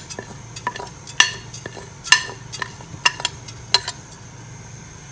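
A metal spoon clinks against a metal cooking pot as whole cumin seeds are scraped in from a plate. There are about ten quick taps, each with a short metallic ring, over the first four seconds, and then they stop.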